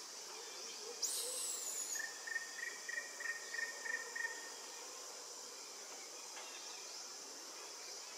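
Steady high drone of insects in the forest. A bird calls over it, first with a sharp high note sweeping down about a second in, then with a quick run of short repeated notes.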